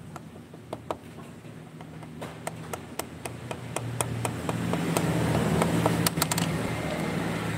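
Two-stroke motorcycle connecting rod rocked by hand in the open crankcase, giving small irregular metallic clicks and taps, more of them in the second half: slight play in the worn con-rod, not yet extreme but still audible. A low steady hum runs underneath.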